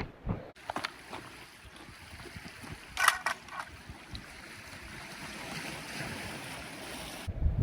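Sea waves washing on the shore with wind noise on the microphone, and a brief cluster of sharp knocks or splashes about three seconds in.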